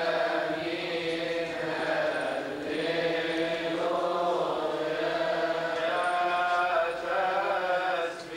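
Voices chanting a Coptic Orthodox liturgical hymn together, with long held notes that move slowly in pitch.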